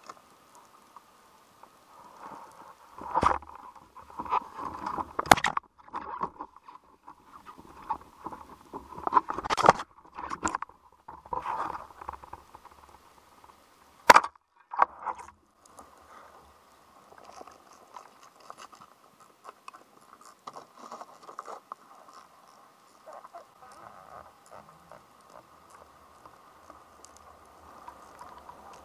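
Underwater sound picked up through a camera housing on a speargun: a run of loud, irregular knocks, scrapes and clatter for about a dozen seconds, which includes the speargun being fired, over a steady crackling hiss that carries on alone afterwards.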